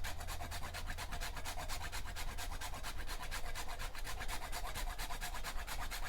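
Whole nutmeg being grated: quick, even rasping strokes, about eight a second.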